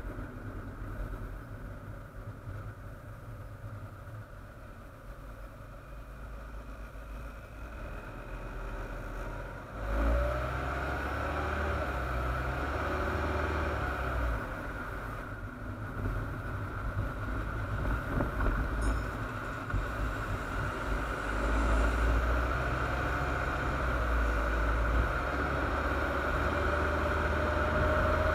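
Muffled rumble of a car driving, picked up through a sealed waterproof camera housing on the front bumper: low road and engine rumble with a steady hiss, getting louder from about ten seconds in.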